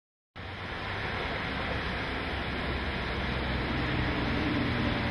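Steady noise of interstate highway traffic, the tyres and engines of cars crossing the bridge, cutting in suddenly just after the start.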